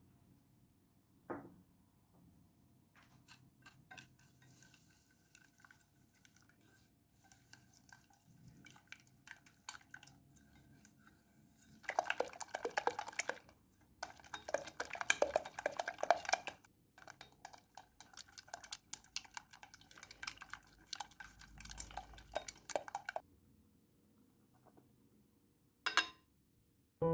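Kitchen utensil clinking and scraping against a bowl: a single knock about a second in, scattered light taps, then about halfway through two long runs of quick rapid clicks, as when mixing ingredients in a bowl.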